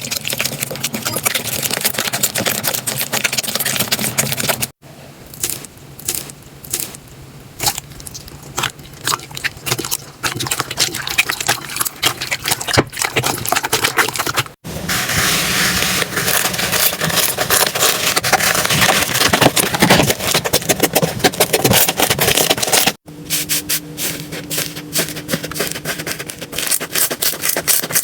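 Slime being squeezed, pressed and stretched by hand, giving dense crackling, clicking and squishing. The texture breaks off and changes abruptly three times.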